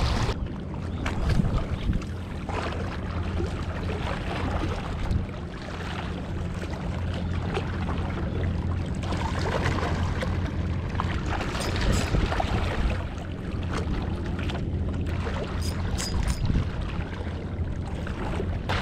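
Seaside ambience: a steady low rumble with wind noise on the microphone, and a few faint clicks in the second half.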